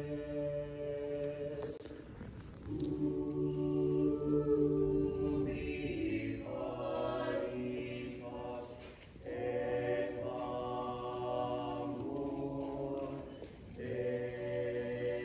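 School choir singing held chords in several phrases, with short breaks between them.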